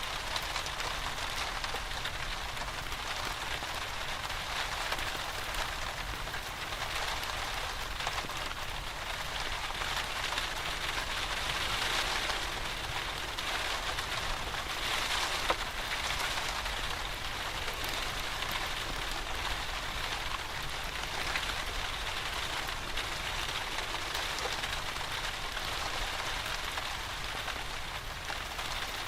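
Steady rain falling, an even hiss that swells a little twice around the middle, mixed with a wood fire in a fireplace; one sharp pop about halfway through.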